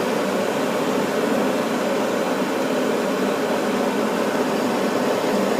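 Gas furnace running steadily: the inducer draft fan and the freshly lit burners, which now stay lit because the cleaned flame sensor proves the flame.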